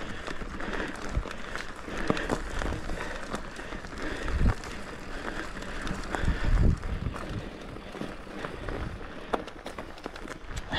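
Mountain bike being ridden over rough trail: a steady rush of tyre and trail noise with frequent rattles and clicks from the bike, and two heavier low thumps about four and a half and six and a half seconds in.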